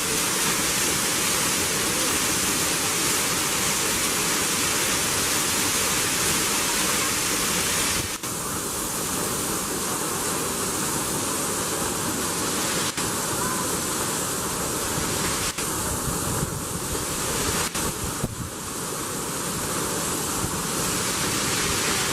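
A waterfall's steady rushing water, a dense even noise. The sound shifts abruptly about eight seconds in and dips briefly a few times later.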